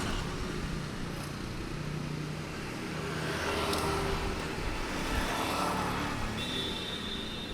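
Light road traffic: vehicle engines running and passing in a steady street wash. A short high-pitched tone sounds near the end.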